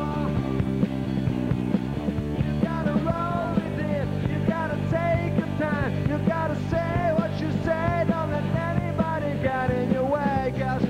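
Live rock band playing: a male voice singing a wavering melody over electric guitar, bass guitar and drums with cymbals, at a steady beat.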